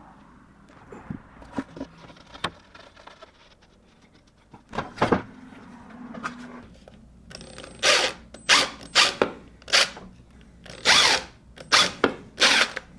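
Power drill run in short bursts, about eight in a row in the second half, each a fraction of a second long, boring pilot holes for small screws into a wood guide strip, with a few light clicks before.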